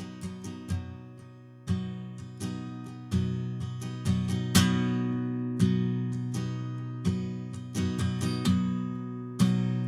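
Solo acoustic guitar: chords strummed and picked, each stroke ringing out and fading before the next. It is an instrumental passage with no singing, and the hardest strum comes about halfway through.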